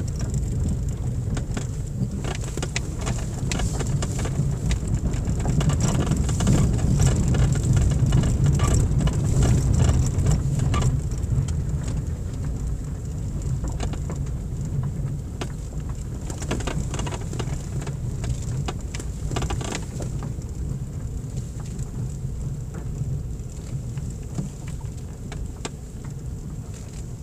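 Car cabin noise on a rough gravel and cinder track: a steady low rumble of engine and tyres, with many small clicks and ticks scattered through it. Louder for about the first ten seconds, easing off after.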